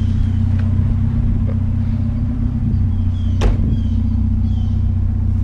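Vehicle engine running steadily with a low hum, with a single knock about three and a half seconds in and a few faint short high chirps.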